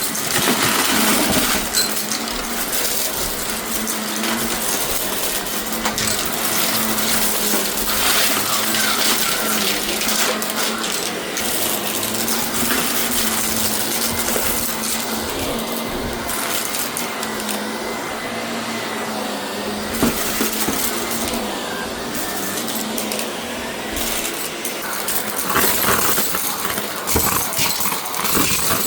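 Shark vacuum cleaner running steadily, its motor humming under a loud airflow hiss, with a constant clatter of hard debris rattling up through the machine as it is picked up.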